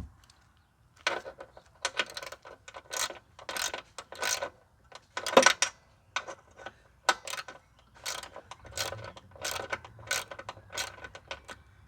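Socket ratchet wrench clicking in short, repeated back-and-forth strokes, two or three a second, as a bolt on the mower is turned.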